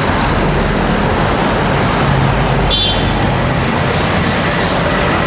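Road traffic going past, with motor vehicle engines running. A short, high beep sounds about halfway through.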